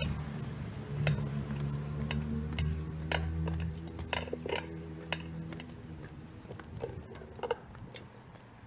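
Street sound: the low hum of a passing vehicle's engine, fading out about five or six seconds in. Light ticks and taps run over it throughout.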